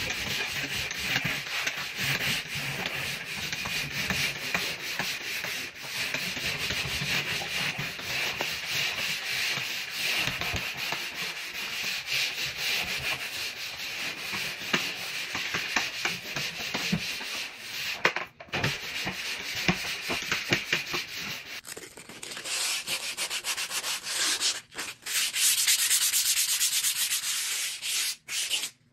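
A sanding pad rubbed by hand over an interior wall: a continuous scratchy rasp of sanding strokes. It turns harsher and louder about three-quarters of the way through, with a couple of brief pauses.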